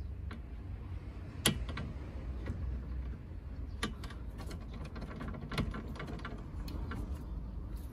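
Scattered light clicks and taps as the new AC pressure sensor is turned a little further by hand on its AC line. The sharpest click comes about a second and a half in, over a low steady rumble.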